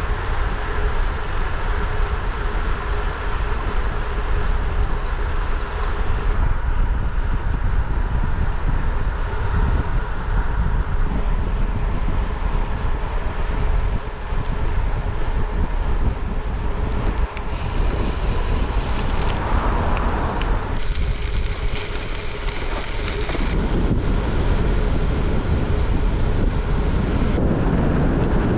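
Wind buffeting the microphone: a steady, loud low rumble of wind noise.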